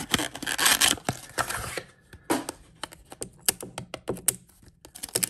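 Foil wrapper crinkling as it is pulled off a small plastic blind-box capsule, followed by a run of small clicks and taps of fingers on the plastic, with crinkling again near the end.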